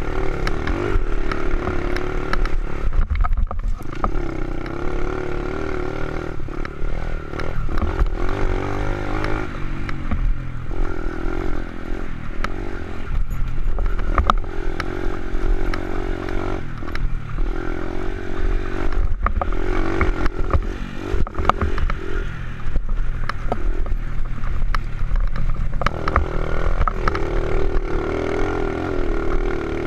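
Honda XR70 pit bike's single-cylinder four-stroke engine, bored out with an 88cc big bore kit and race cam, revving up and dropping back again and again under riding load, with brief dips every few seconds as the throttle is rolled off. Clattering knocks from the bike over rough dirt ground.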